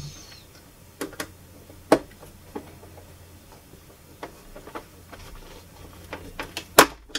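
Screwdriver driving a screw into the plastic base of a Technics SL-J110R turntable: scattered clicks and taps of tool and screw against the plastic, about eight in all, the loudest near the end.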